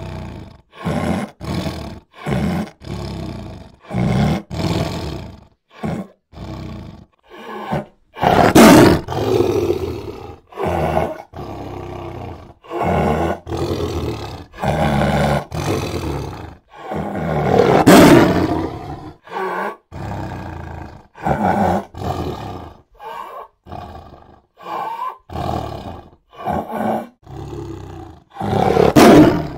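Big cats roaring and snarling in a run of short, separate bursts, the three loudest and longest roars about 9, 18 and 29 seconds in.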